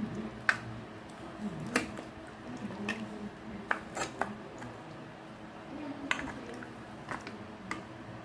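A spatula and ladle knocking and clinking against a large aluminium pot while a meaty stew is stirred, about nine sharp, irregular clicks.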